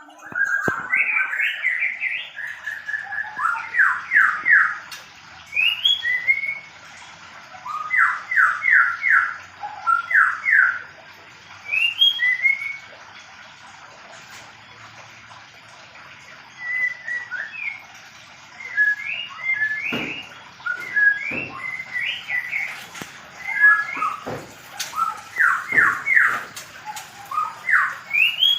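White-rumped shamas calling: short, sharp rising notes, often in quick runs of three or four, coming in bursts with a pause in the middle. A few soft knocks fall in the second half.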